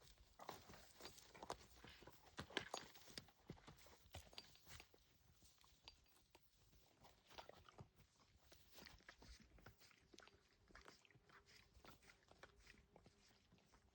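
Horses making faint, scattered knocks and crunches, busiest in the first few seconds.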